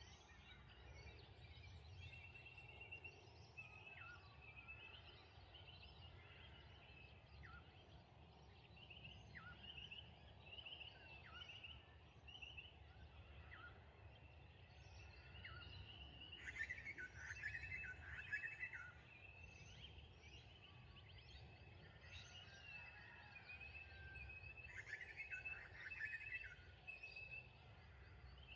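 Faint birds calling: scattered short chirps and high whistled notes, with a louder burst of rapid chattering about halfway through and another near the end.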